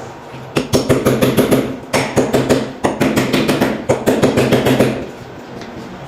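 Rapid hammer blows, about five or six a second, in four quick runs with short breaks between them, over a faint steady hum.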